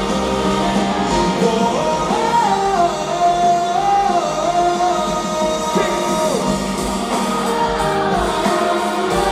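Live band music with a singer's voice carrying a gliding, bending melody over the band, recorded from the audience at a concert.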